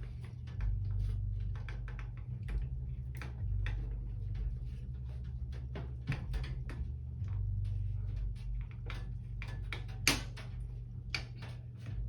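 Screwdriver driving motherboard screws into the case: a run of small, irregular clicks and ticks, with one sharper click about ten seconds in, over a steady low hum.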